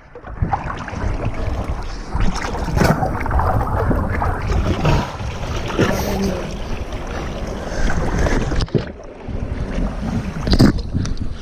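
Whitewater rapids rushing and splashing close around an inflatable kayak, loud and churning, with sharp splashes and a brief drop about nine seconds in.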